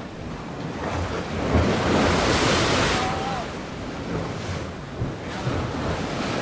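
Mediterranean surf washing onto the shore: one wave swells to its loudest about two seconds in and draws back, and the next starts building near the end, with some wind noise on the microphone.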